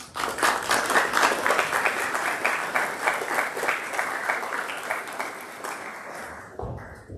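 Audience applauding: many hands clapping that start suddenly, are loudest in the first seconds and fade away over about six seconds. A low thump comes near the end.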